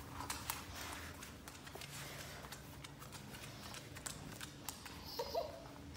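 Faint clicking of an Australian Shepherd's claws on a hard wood-look floor as it moves about with a rubber toy in its mouth, with a short whimper near the end.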